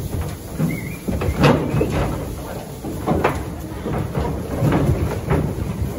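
Calves' hooves clattering and thumping on a metal livestock trailer floor as they step off, with several sharp knocks a second or so apart over a low rumble of shuffling.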